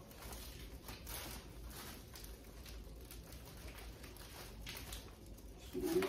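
Plastic trash bag rustling and crinkling softly as it is handled by its drawstring.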